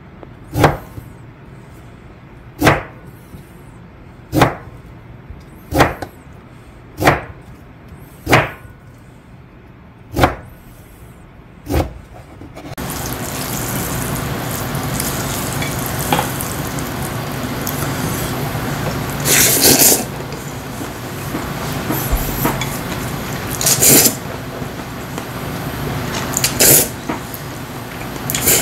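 Chef's knife slicing pickled radish on a plastic cutting board: eight sharp knocks of the blade on the board, one every second or two. About halfway through, this gives way to a person eating spicy mixed noodles with chopsticks, with several loud slurps.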